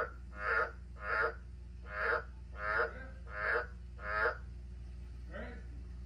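A frog calling repeatedly: short croaks, about eight of them, spaced half a second to a second apart, with the last one fainter.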